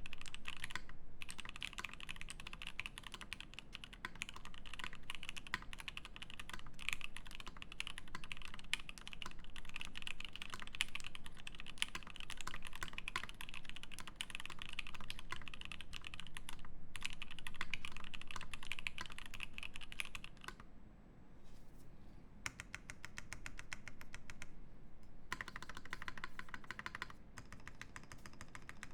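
Fast typing on a Primus 75 mechanical keyboard with lubed and filmed Turquoise Tealios linear switches, an aluminium plate and GMK keycaps: a dense, steady run of keystrokes that stops for about two seconds roughly twenty seconds in, then resumes.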